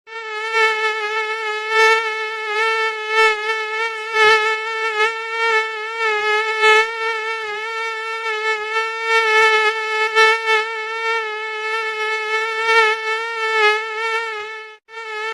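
Mosquito wingbeat whine: a continuous high buzz with a slight wavering in pitch, starting abruptly and breaking off briefly just before the end.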